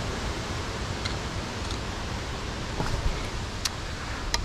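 Steady rustling hiss, with a couple of sharp clicks near the end.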